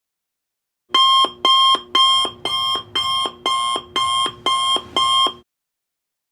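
Electronic alarm-clock beeping as the countdown timer reaches zero: nine evenly spaced beeps, about two a second, which stop abruptly after about four and a half seconds.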